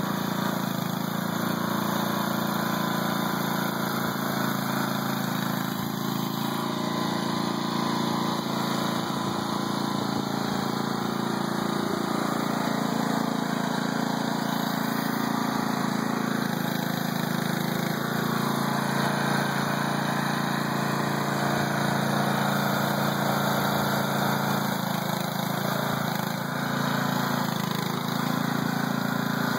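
Small petrol engine of a motorised muck truck (power wheelbarrow) idling steadily.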